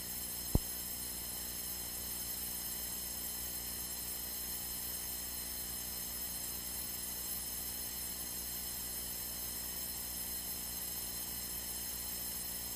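Steady electrical hum with a thin high buzz in the light aircraft's radio and intercom audio, heard in a pause between air traffic control calls; a single short click about half a second in.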